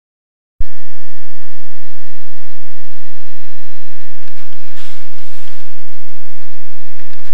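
Steady electrical buzz made of several high, even tones, starting after a moment of silence, with a brief soft rushing noise about five seconds in.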